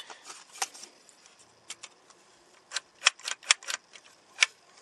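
Sharp irregular clicks of small plastic and metal parts as a truck's interior door handle assembly is handled: a few at the start, a short lull, then a quicker run of clicks in the second half.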